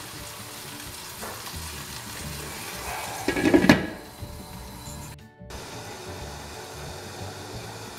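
Chicken liver in watery tomato gravy sizzling and bubbling in a wok, set to simmer on low heat. About three and a half seconds in, a glass lid goes on with a brief knock, and after that the sizzle is duller under the lid.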